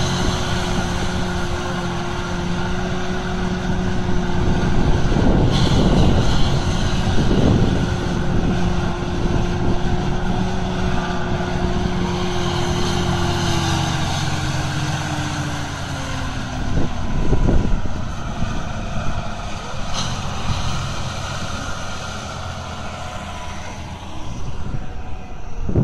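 John Deere tractor's diesel engine running hard and steady while the tractor is stuck in deep mud, then its pitch falls over a few seconds about halfway through as the revs drop away.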